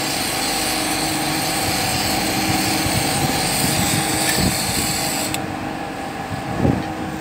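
Glassworking gas torch flame hissing steadily over a steady low hum as a small glass figure is heated; the hiss cuts off suddenly about five seconds in, leaving the hum, with a low knock near the end.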